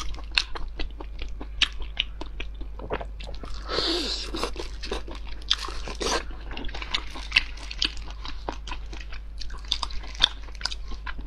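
Close-miked eating of small sausages in sauce: wet chewing with many sharp crunching bites and mouth clicks, and two longer, noisier sounds about four and six seconds in.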